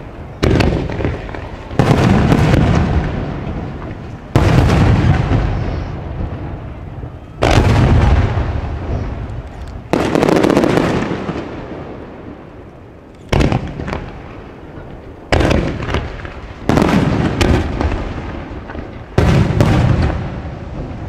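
Aerial fireworks shells bursting: about nine sudden loud booms at irregular intervals, each followed by a rumbling echo that dies away over a second or more before the next.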